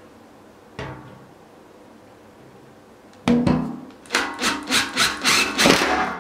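Power drill with a step bit boring into a plastic bucket lid, run in short bursts about three a second, the bit grinding and squeaking against the plastic. There is a single knock about a second in.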